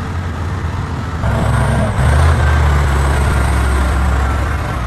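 Heavy truck engine running steadily, getting louder about a second in.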